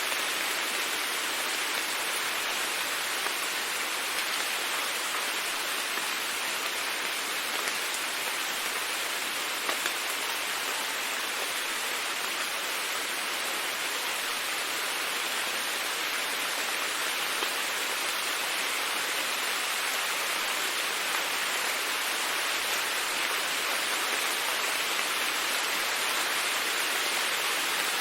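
Steady rain falling, an even hiss with faint individual drops ticking here and there.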